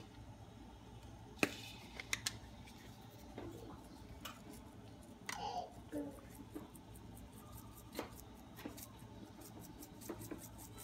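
Faint scattered clicks and taps of hands handling small kitchen items on a counter, a few of them sharp, with a run of quick faint ticks near the end.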